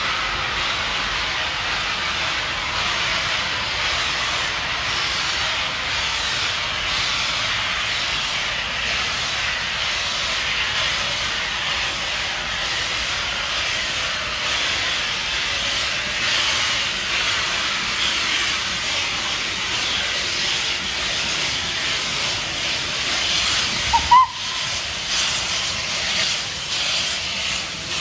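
Steam locomotive venting steam: a steady loud hiss. About 24 seconds in there is a brief knock and a short tone.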